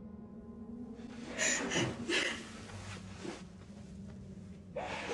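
Soft, shaky breaths and quiet sobs, a few short ones clustered in the middle, over a low steady drone.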